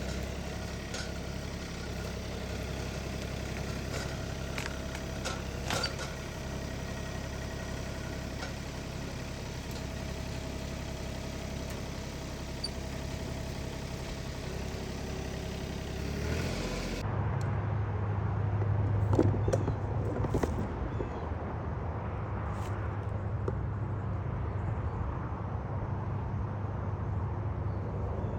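Tractor engine running steadily as the grapple works, with scattered clanks. About two-thirds of the way in, the sound cuts abruptly to a different, deeper and louder engine drone.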